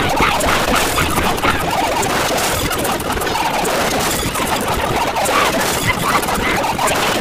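A dense, chaotic din of many short sound clips playing over one another at once, with no single sound standing out and scattered clicks and pops through it.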